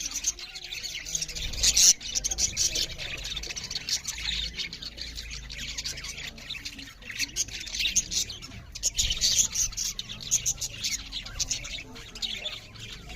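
Budgerigars chattering, a continuous dense warble of short chirps and squawks.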